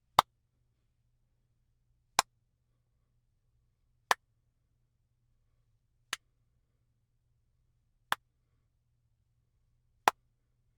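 Six single hand claps about two seconds apart, each dying away almost at once, the fourth one softer, clapped as a room test of the recording space. A faint low hum runs underneath.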